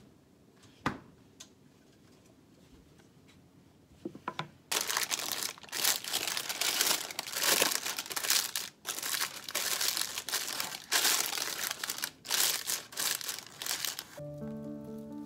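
Sheet of baking paper crinkling and crumpling as it is pressed and creased into a springform cake pan, starting about five seconds in with short pauses. Music with a few held notes comes in near the end.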